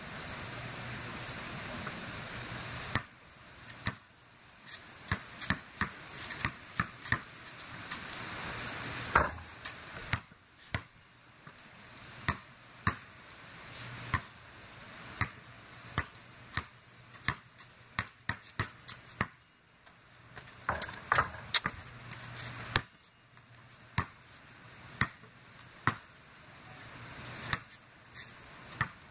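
A basketball bounced on a concrete driveway as it is dribbled: sharp, irregular bounces, sometimes in quick runs, starting about three seconds in. A faint steady rushing sits underneath.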